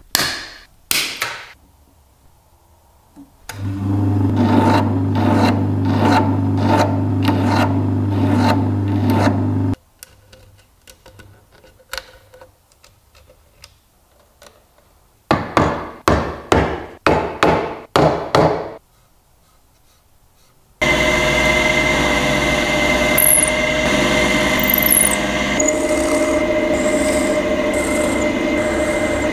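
Workshop tool work on steel rod and oak. Bolt cutters snip threaded rod twice near the start. A machine runs with a regular stroking for about six seconds, and a run of about eight short strokes follows. Near the end a drill spins steadily, boring countersinks into an oak board.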